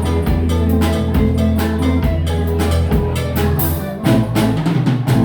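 A live band of acoustic guitar, bass guitar and drum kit plays the closing bars of a song, with steady bass notes under regular drum strokes, then breaks into a final accented ending about four seconds in.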